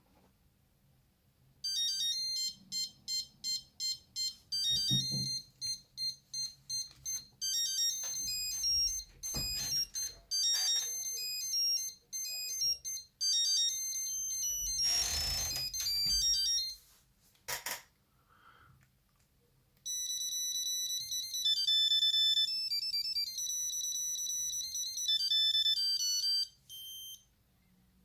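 Nokia 8210's monophonic ringtones played one after another: short beeping melodies, one note at a time, with a pause of a couple of seconds about two-thirds of the way through. A few brief bursts of noise are heard between tunes.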